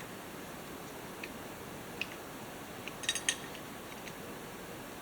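Small, light clicks and taps of tools and carburetor parts being handled on a bench: single clicks about a second and two seconds in, then a quick cluster of sharp clicks about three seconds in, over a steady low hiss.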